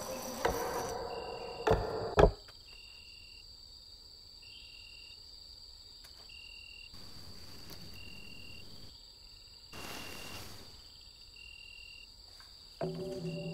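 Night crickets chirping in short trills about every one and a half to two seconds over a steady insect hum. Two sharp knocks come about two seconds in, and a low sustained musical drone enters near the end.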